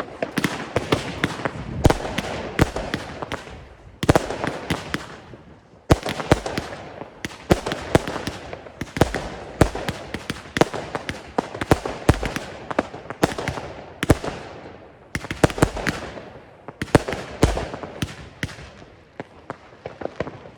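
Consumer firework batteries, red crossette cakes among them, firing in rapid succession: a dense run of shots and bangs with crackle between them, and brief lulls about four and six seconds in.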